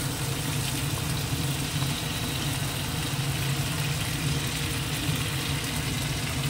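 A steady low hum with an even hiss above it, like a motor running, unchanged throughout.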